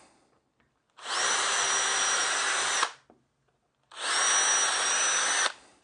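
Cordless drill boring pilot holes in wood, run twice for about two seconds each with a steady high whine that rises quickly as it spins up.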